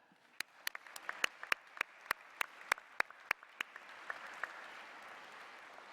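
Audience applauding: a run of loud, separate claps near the microphone at about three a second for the first few seconds, over a wash of many hands clapping that swells and then fades toward the end.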